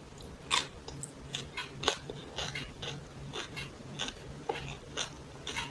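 A person chewing noodles close to the microphone: a string of short, irregular wet mouth clicks and smacks, a few a second.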